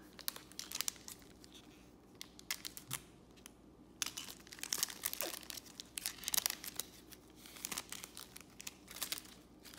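Foil wrapper of a Panini Select baseball card pack being torn open and crinkled, in irregular crackling bursts that grow busier in the second half.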